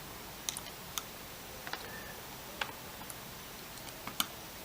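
Small, sharp metallic clicks and ticks of a screwdriver working the motor screws on a quadcopter frame as they are tightened. About half a dozen come at uneven intervals, with the loudest pair near the end.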